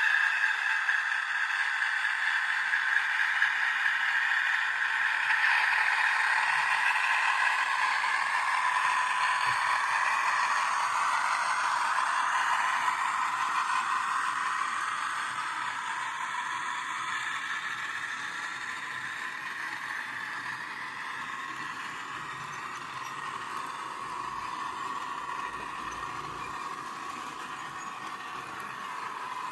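OO gauge Hornby Class 60 model locomotive running under DCC, its factory-fitted sound decoder playing diesel engine sound through the model's small speaker, with wheels on track. It grows quieter about halfway through.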